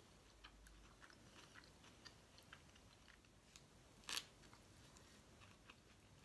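Faint chewing of a roast duck pancake wrap with basil leaves: soft, scattered mouth clicks and smacks, with one louder short crunch about four seconds in.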